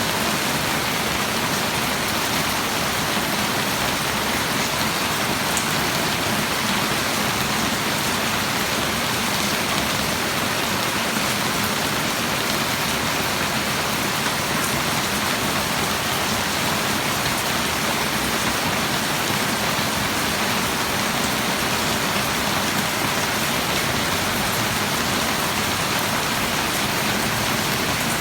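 Steady rain falling, a dense, even hiss of drops hitting surfaces that holds level without letup.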